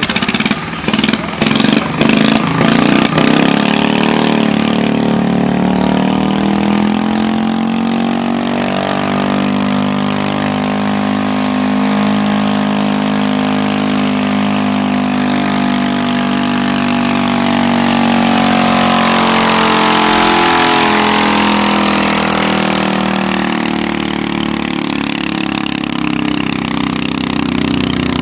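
Modified garden tractor engine running hard under load as it drags a weight-transfer pulling sled, a loud steady engine note whose pitch slowly sags and recovers over the pull. The sound is choppy for the first few seconds.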